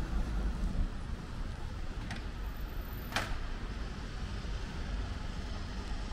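Street traffic: passing cars giving a steady low rumble with tyre noise. Two short sharp clicks stand out, about two and three seconds in, the second the louder.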